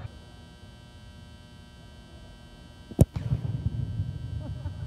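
A single sharp, loud thud about three seconds in: a kicker's foot striking an American football held on the turf for a place kick.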